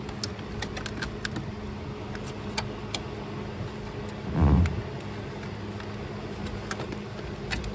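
A wire harness in a corrugated plastic loom being worked loose under a car dashboard, with light plastic clicks and rustles. About halfway through there is one short, low, buzzy squawk that sounds like a fart.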